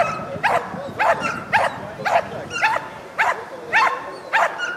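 Dutch shepherd barking steadily at about two barks a second while it stands guarding a motionless helper in a bite suit.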